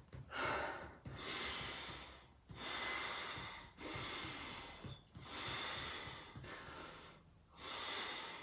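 A man breathing heavily as he recovers from a hard exercise interval: about seven long, noisy breaths, each lasting about a second, with short pauses between.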